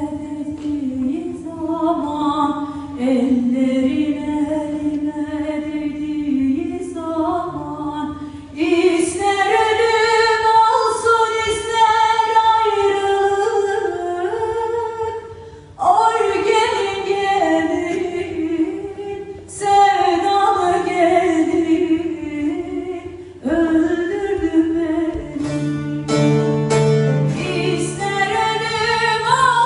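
A woman singing a slow Turkish folk song with instrumental accompaniment. Her sung phrases come in waves, with new ones entering about a third, halfway and three-quarters of the way through.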